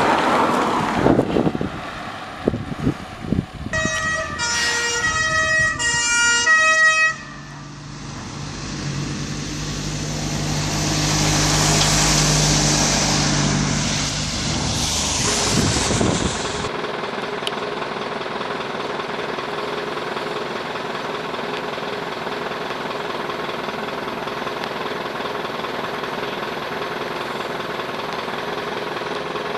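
A fire-service vehicle passing close, then a German two-tone emergency siren (Martinshorn) sounding about three seconds of alternating high and low notes. Then a fire truck's diesel engine goes by, its engine and tyre noise swelling and fading, and from about two-thirds of the way in a steady idling diesel hum.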